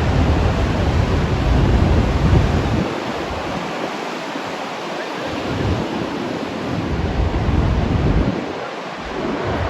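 Big ocean waves breaking as a continuous wash of surf noise. Wind buffets the microphone in gusts, heaviest for the first three seconds and then lighter.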